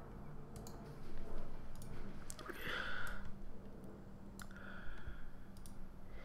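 Scattered, irregular computer mouse and keyboard clicks. There is a short soft hiss about two and a half seconds in and a fainter one near five seconds.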